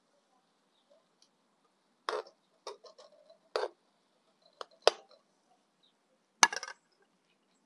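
Dishes and utensils clinking and knocking together: about half a dozen separate hits, the loudest near the end, followed by a brief rattle.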